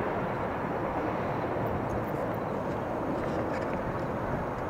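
Steady rumble of a passenger train's wheels rolling on the rails as the train moves away, growing slightly fainter.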